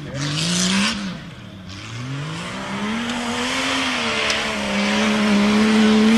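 Jeep Cherokee (XJ) race truck's engine revving hard: it climbs, drops back about a second in, then climbs again and holds high and steady near the end. Over it runs a hiss of the tires spinning and throwing dirt.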